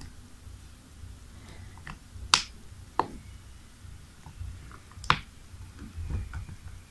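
The glued plastic casing of a Microsoft Surface Pro power adapter cracks along its seam as a screwdriver pries it open. There are three sharp snaps, a little after two seconds in, at about three seconds and at about five seconds, with fainter clicks and handling noise between as the glue joint lets go.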